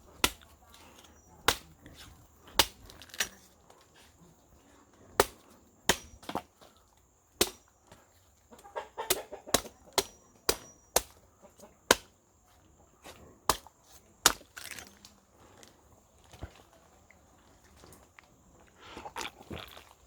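A series of sharp knocks or chops at irregular intervals, roughly one a second, with chickens clucking in short spells about halfway through and again near the end, over a faint high steady insect drone.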